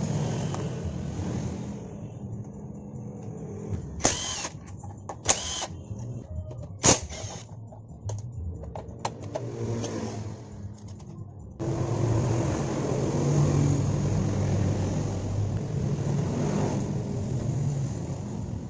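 Sharp metal clinks of hand tools at work on a motorcycle's engine side covers, three standing out in the first half. From about halfway a steady engine running from a motor vehicle takes over as the loudest sound.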